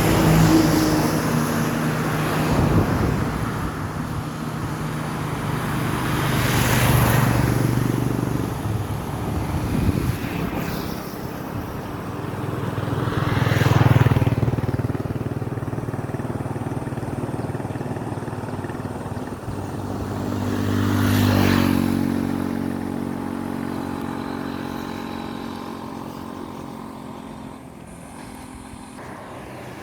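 Motor vehicles passing one after another, each engine sound swelling up and fading away over a few seconds, with about three clear passes before the sound dies down near the end.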